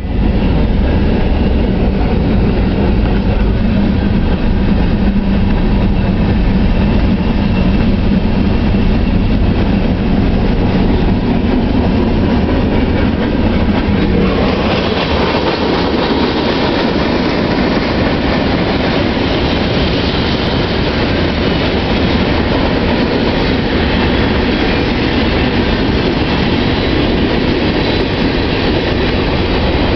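Freight cars of a Norfolk Southern train (covered hoppers, gondolas, flatcars) rolling past close by, with the steady rumble and clatter of steel wheels on the rails. The noise grows brighter and hissier about halfway through.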